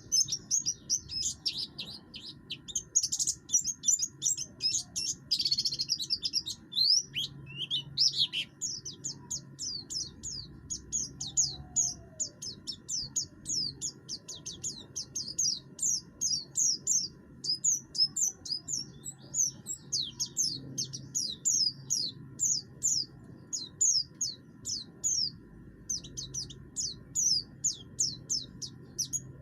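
A white-eye of the kind kept as 'pleci buxtoni' singing non-stop: a fast, unbroken chatter of short, high, downward-slurred notes with a harsh edge. It is the persistent ('gacor') song that keepers play to get other white-eyes singing.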